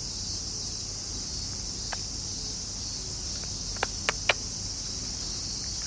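A chorus of cicadas gives a steady high-pitched drone. A few short, sharp clicks come about two seconds in and again as three quick clicks around four seconds in.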